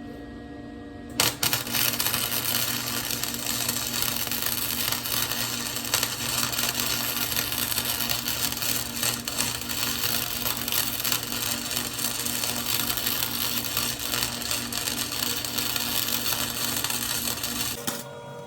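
Arc welder crackling steadily as a bead is laid over a rust hole in an old steel wheel rim. The crackle starts about a second in and cuts off just before the end, over a low steady hum.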